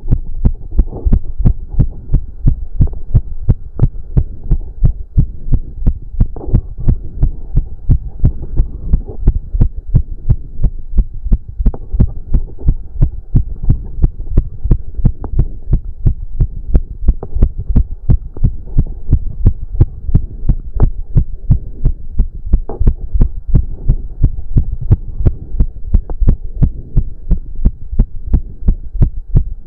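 A man's heart racing from cardio exercise, recorded close against the chest: a fast, even run of deep thumps.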